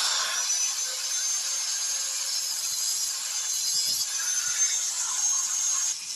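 Handheld angle grinder cutting metal: the disc runs steadily with a high whine over the grinding noise, then cuts off suddenly near the end.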